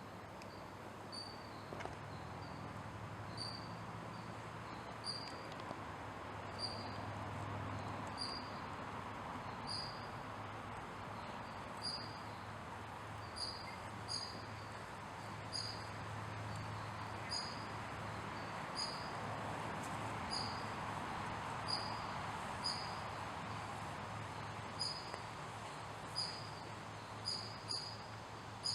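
Short high-pitched chirps from a small animal, repeating irregularly about once a second, over a steady outdoor hum and hiss.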